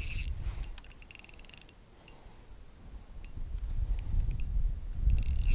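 Spinning reel's drag clicking in a fast run as a big catfish pulls line off. The clicking dies down to a few single clicks midway, then runs again near the end.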